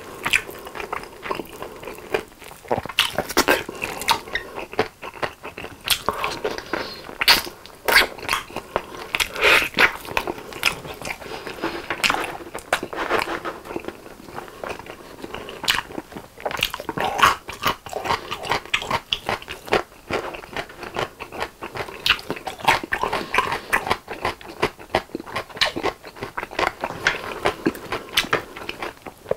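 Close-miked eating of sauce-glazed chicken drumsticks: biting, pulling meat off the bone and chewing, heard as a dense run of irregular wet smacks and clicks.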